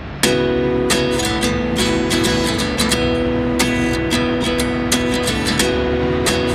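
Background music: strummed acoustic guitar with a steady rhythm, coming in suddenly just after the start.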